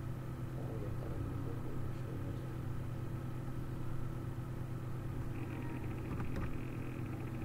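A steady low hum with no speech. A faint, fluttering higher buzz joins about five seconds in.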